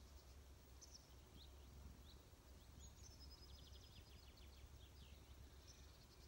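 Faint songbirds calling: scattered short high chirps and a fast trill about three seconds in, over a steady low rumble.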